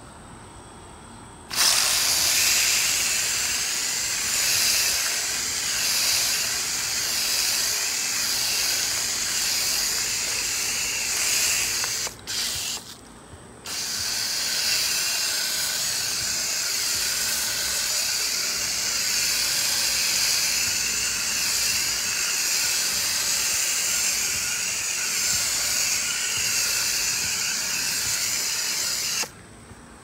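Coil gun hissing as it sprays foaming cleaner onto a dirty air-conditioner condenser coil. It starts about a second and a half in, breaks off for a moment near the middle with a short burst, and cuts off just before the end.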